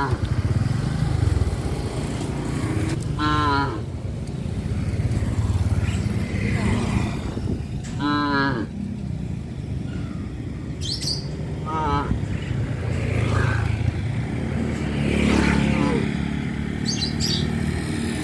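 Cattle mooing, several separate calls a few seconds apart, over a steady low rumble of vehicle engines.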